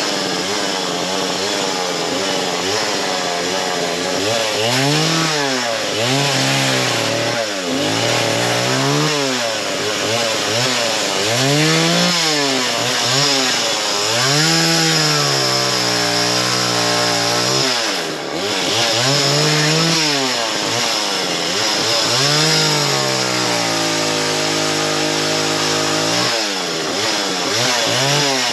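Small chainsaw cutting into a large downed tree, its engine pitch rising and falling over and over as it is throttled up and loaded down in the wood, with a few longer steady stretches of cutting and a brief drop about two-thirds of the way through.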